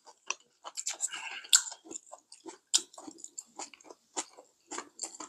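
Close-miked chewing: an irregular run of short mouth smacks and clicks, several a second, from people eating a meal.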